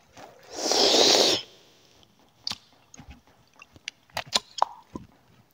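A long, forceful breath blown out close to the microphone, typical of exhaling cigarette smoke, lasting about a second, followed by a few short sharp clicks.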